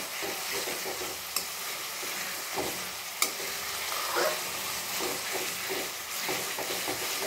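Spiced onion-tomato-yogurt masala sizzling in oil in a kadai while a metal spatula stirs and scrapes through it, with a few sharp clicks of the spatula against the pan.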